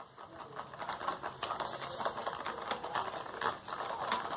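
Irregular small clicks and taps with some rustling, from slime-making containers and utensils being handled on a table.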